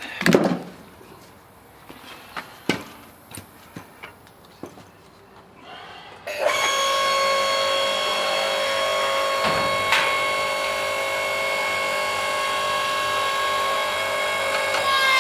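A few knocks and clicks of wood being handled, then, about six seconds in, a log splitter starts up and runs with a steady, even whine as it pushes on a tough piece of firewood that will not split.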